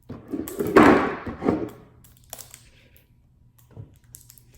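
Plastic toy packaging being handled and pulled open: a burst of rustling and knocking for about a second and a half, then a few soft clicks.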